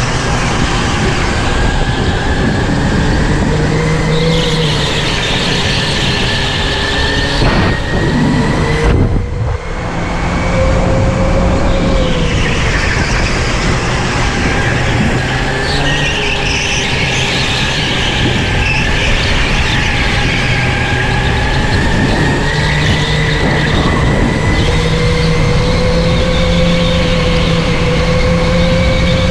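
Electric go-kart motor whining, heard from on board the kart, its pitch rising and falling with speed through the corners over a steady rushing noise. The sound dips briefly about nine seconds in.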